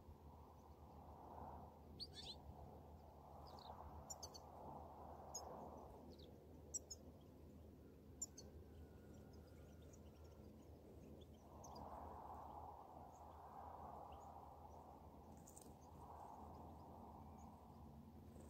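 Faint, scattered high chirping calls of European goldfinches, a few short notes at a time, over a soft background hiss.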